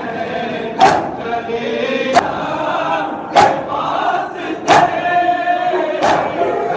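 Matam: a crowd of men striking their bare chests with open hands in unison, five sharp slaps about every one and a third seconds. Between the slaps men chant a noha lament together.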